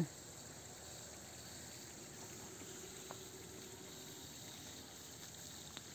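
Faint gurgle of water welling up from drip-irrigation bubbler emitters at the base of a date palm, over a steady high-pitched chirring of insects.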